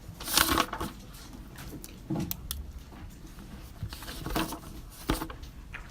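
University library room ambience: quiet room tone broken by short rustles, knocks and clicks from people working at desks, with a louder rustle about half a second in and a sharp click about five seconds in.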